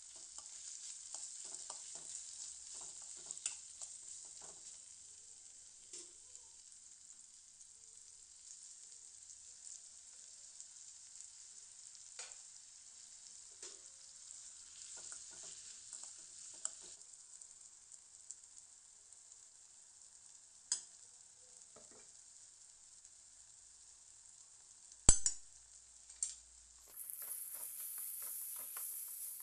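Chopped onions and vegetables frying in oil in a stainless steel kadai, sizzling steadily while a metal spoon stirs and scrapes against the pan with light clinks. A sharp metal clank comes about 25 seconds in, and near the end the sizzle turns louder and higher.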